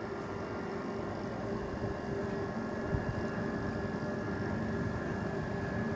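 A steady mechanical hum with a few constant tones over a low, uneven rumble, like an engine or motor running.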